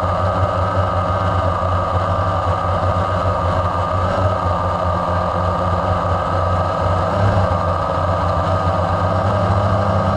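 Engine of a radio-controlled model aircraft, recorded close up by a camera on board. It runs steadily at a constant speed, with a low drone under a steady high whine.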